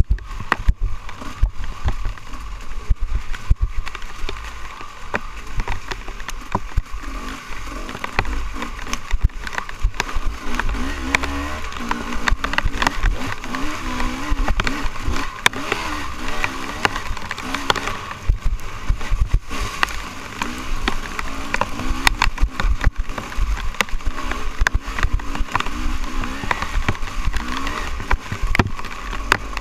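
Dirt bike engine revving up and down as the rider works the throttle over a rough trail, with frequent knocks and rattles from the bike bouncing over bumps.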